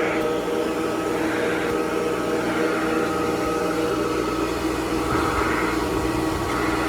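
Hoover Model 28 vacuum cleaner running steadily: a motor hum with a few fixed tones over the rush of air.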